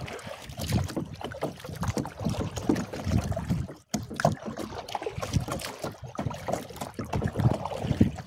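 Kayak paddling: the paddle blades dipping and splashing in the water in an irregular rhythm of strokes.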